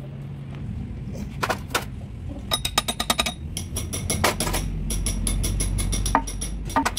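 Hand tools striking and clinking on the steel of a Hino truck gearbox: scattered taps, then quick runs of ringing metallic taps from about two and a half seconds in, over a low rumble.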